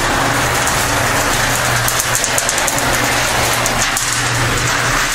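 Homemade half-yard cement mixer running: the steel drum turning on its support wheels, driven by a motor through belts and stepped pulleys. It makes a steady hum under a fast, even rattle.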